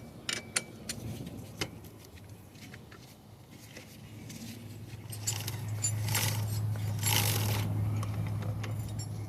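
Metal hand tools clinking and rattling while a pit bike's rear axle and chain adjusters are set up, with a few scraping stretches. A steady low hum sets in about halfway through.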